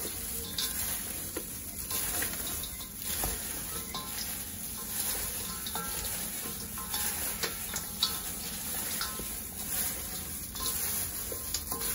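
Gloved hands tossing boiled chicken feet with kumquats, salt and sugar in a stainless steel bowl, working the seasoning in. Continuous irregular rustling of the plastic gloves and meat, with many small clicks and knocks.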